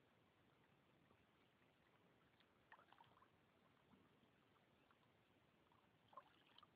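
Near silence: faint water sounds of a canoe paddle working through a calm river, with a few soft drips and small splashes about three seconds in and again near the end.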